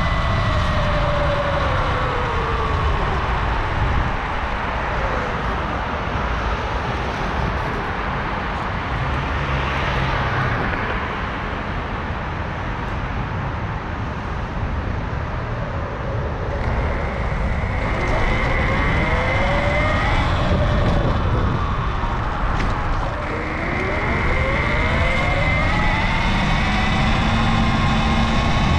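Whine of a Sur Ron Light Bee electric dirt bike's drive under way. The pitch falls over the first few seconds as it slows, holds steady at speed in the middle, and rises again near the end as it accelerates, over a steady low rushing noise.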